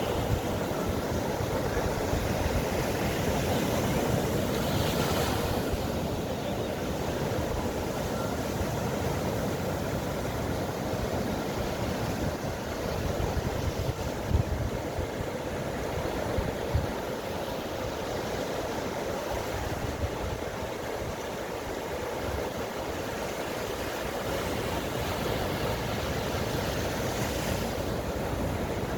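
Ocean surf washing steadily onto a beach, with low wind rumble on the microphone and a couple of brief low thumps about halfway through.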